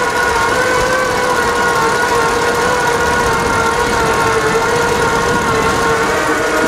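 Electric motors of a Selden in-mast mainsail furling system and its powered outhaul winch running together as the sail unrolls: a steady whine with a few overtones.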